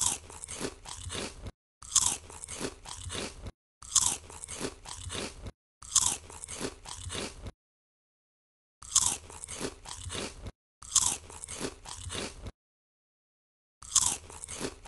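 Crunchy eating sound effect: a loud bite followed by several chews, played seven times in a row with dead silence between each repeat.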